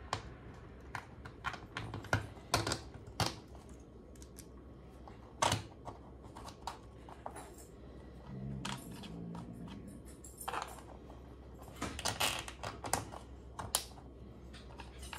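Small 3D-printed PLA plastic skeleton-lock parts clicking and tapping as they are handled and pressed together by hand on a tabletop. The clicks are irregular, sometimes in quick clusters.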